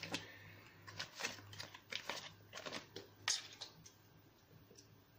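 Fresh-yeast cube's wrapper being torn open and unwrapped: a run of short crinkles and crackles, the sharpest about three seconds in, then dying away.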